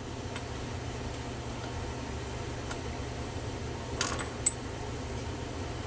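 Small metal lock parts (pins and springs from a disassembled padlock core) being handled on a bench: a few light clicks, with the sharpest, a click with a brief metallic ring, about four and a half seconds in, over a steady low hum.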